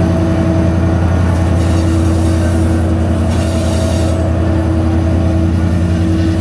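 Sri Lanka Railways S13 diesel multiple unit's power-car diesel engine running close by with a steady drone that holds its pitch as the power car moves slowly past. About a second in, a high hiss joins the drone for two to three seconds.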